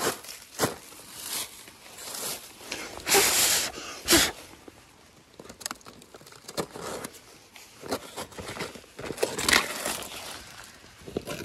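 A hand brushing dry leaves and soil off a paper cover on a wooden box, then lifting the paper away: a run of short, scratchy rustles, loudest about three to four seconds in.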